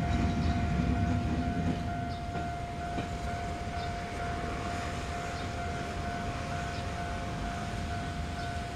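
Low rumble of a diesel locomotive and its freight train moving away, fading about two seconds in. A steady high tone with a regularly pulsing higher tone runs over it.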